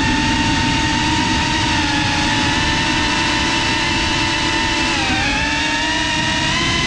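FPV racing drone's brushless motors and propellers whining at high throttle over wind rush on the GoPro's microphone. The whine holds steady, then dips in pitch about five seconds in as the throttle eases, and climbs back.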